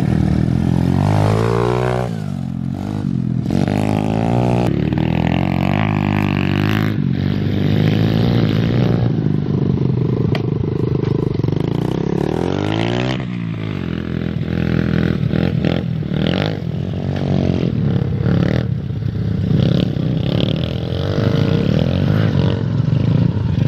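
Small dirt bike (pit bike) engine revving as it is ridden, its pitch rising and falling with the throttle.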